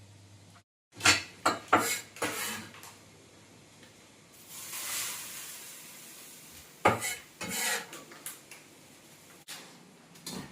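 Kitchen clatter of pots, bowls and utensils: sharp clinks and knocks in two bursts, with a hissing rush between them about four to six seconds in.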